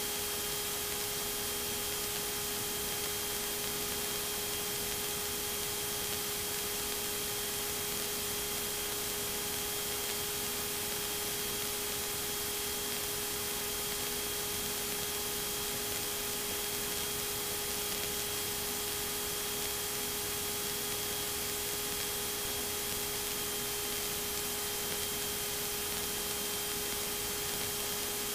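Steady hiss with a faint constant electrical hum and whine: the background noise of a light aircraft's intercom audio feed in cruise, with nobody transmitting or talking.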